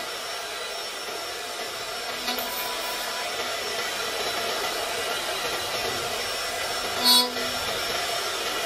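4-axis woodworking CNC router spindle milling the profile of a wooden chair back leg: a steady run of cutting and machine noise with a thin high tone. There is a brief louder, pitched burst about seven seconds in.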